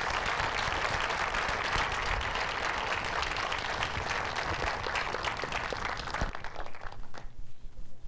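Audience applauding: many hands clapping together in a dense patter that dies away about six seconds in, leaving a few scattered claps.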